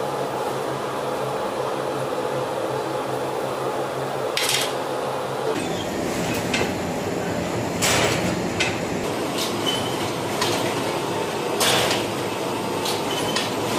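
Bakery dough machinery running with a steady motor hum that drops out about five and a half seconds in, followed by a series of sharp metallic clanks and knocks.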